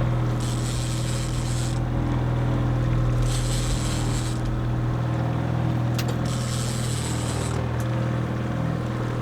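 Boat motor running steadily at trolling speed, a constant low hum, with a hiss that rises and fades about every three seconds.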